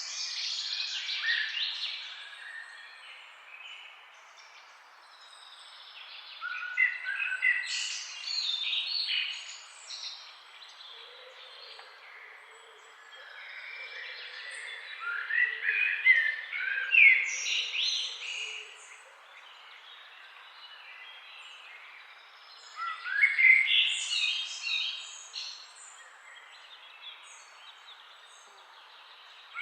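Several songbirds singing in four bouts of quick chirps and rising trills, each a few seconds long, with quieter gaps between them, over the faint steady rush of a forest river.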